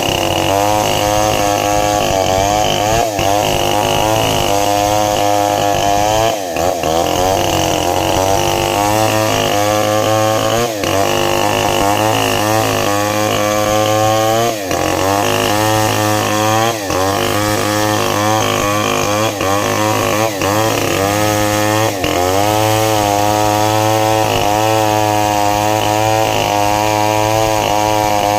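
Two two-stroke chainsaws running at high revs while cutting sengon (albizia) logs. The engine pitch wavers as the chains bite and load the engines, with brief dips in level now and then.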